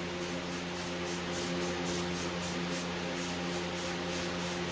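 Electric fan running with a steady hum, over the soft rhythmic swish of a paintbrush stroked back and forth across a painted wooden drawer, about three or four strokes a second.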